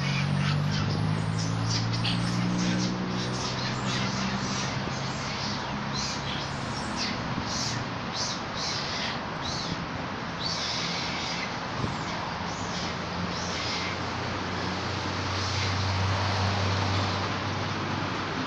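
Birds chirping and calling in quick, repeated short notes, thinning out in the second half, over a steady low hum.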